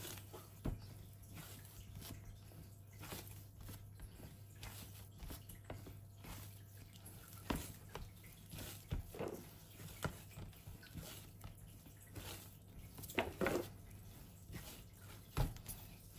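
Enriched milk-bun dough being kneaded by hand with buttered hands: irregular soft sticky squelches and slaps as it is stretched and folded, with a few louder thuds of the dough pressed onto the board. A low steady hum underneath.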